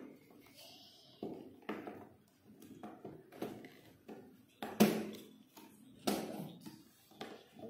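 Plastic toy kitchen parts being handled and fitted together: scattered light knocks and clicks, the loudest a sharp knock about five seconds in.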